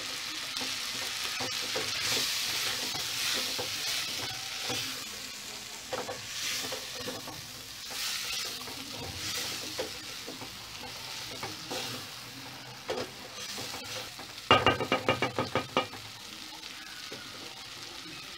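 Wooden spoon stirring cooked beans in a metal cooking pot, with scraping, wet strokes against the pot. Near the end comes a quick run of about eight loud knocks that ring off the pot.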